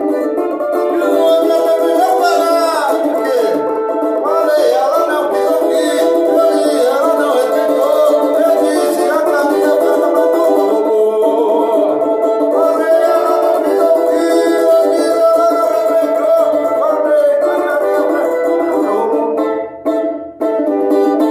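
Banjo-cavaquinho (Brazilian samba banjo) played in a samba style, chords and melody notes ringing together. The playing drops out briefly twice near the end.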